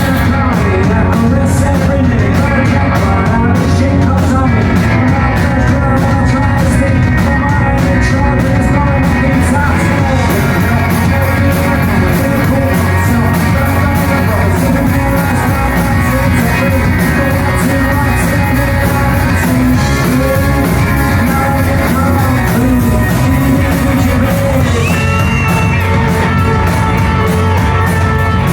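Indie rock band playing live and loud, with electric guitars and a sung vocal line.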